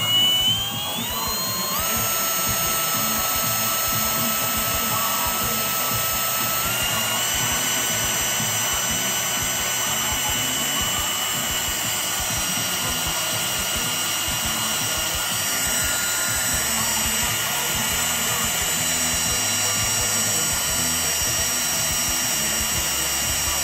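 Electric drill driving the oil pump of a rebuilt Chrysler 318 V8 to prime its oiling system before first start: a whine that rises as the drill spins up, steps up in pitch twice in the first several seconds, then runs steadily.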